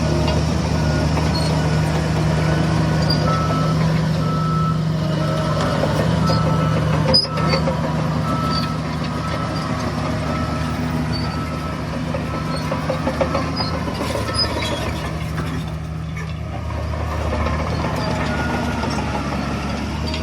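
Heavy diesel engine of a construction truck or earthmover running steadily, with a reversing alarm beeping at an even interval over it.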